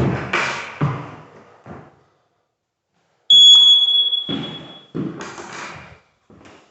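Battery-powered smoke alarm sounding its test beep: one shrill, steady tone about three seconds in, lasting about a second and a half, showing the alarm works on its new battery. Handling thumps and rustling come before and after it.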